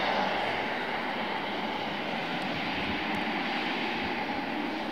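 Eurofighter Typhoon's twin EJ200 jet engines running on the runway with reheat lit: a steady jet rush that eases slightly in level.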